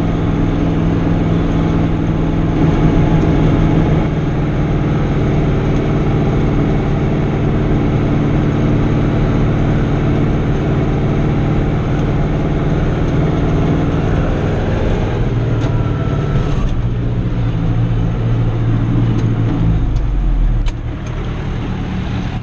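Fiatagri 88-94's 3.9-litre turbocharged engine running steadily under load while mowing, heard from inside the cab. About 15 seconds in its pitch drops, a deep low note follows a few seconds later, and the overall level falls just before the end as the engine is throttled back.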